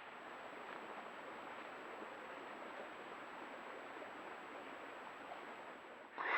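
Creek water flowing steadily, picked up by a trail camera's microphone, with a faint steady high-pitched tone over it. A short, louder sound breaks in right at the very end.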